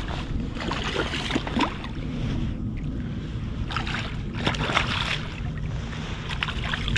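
Steady low rumble of wind on the microphone, with short bursts of rustling and handling noise as the camera moves against clothing.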